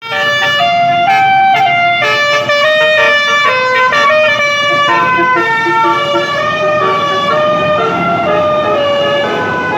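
Basuri telolet bus horns playing fast melodic note sequences, several horns overlapping, over the rumble of the buses.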